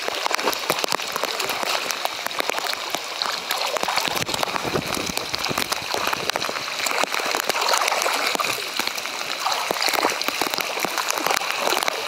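Rain falling on a river's surface mixed with close splashing from a swimmer's strokes, heard from a camera held just at the waterline, with a heavier, deeper slosh about four seconds in.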